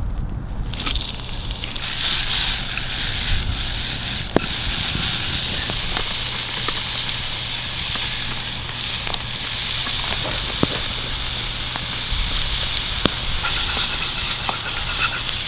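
Food cooking over an open campfire: a steady sizzling hiss with a few sharp crackling pops scattered through it.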